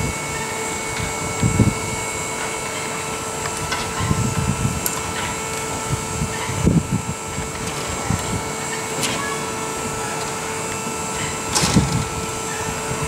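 Steady hum of a large indoor climbing hall, with a few short bursts of spectators' voices rising out of it.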